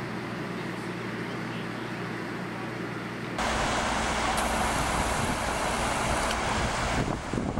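Floodwater rushing across a street, with wind on the microphone: a steady rushing noise with a low hum under it that turns abruptly louder and brighter about three and a half seconds in.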